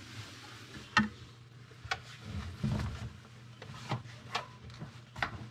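Scattered light clicks and knocks from handling tools and plumbing fittings under a sink cabinet, about five in all, with a rustling stretch midway and a low steady hum underneath.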